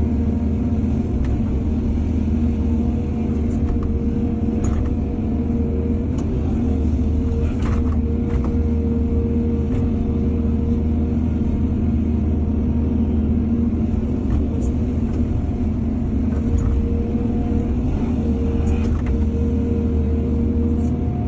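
Heavy diesel engine of an excavator running steadily under load, with a few short clanks scattered through.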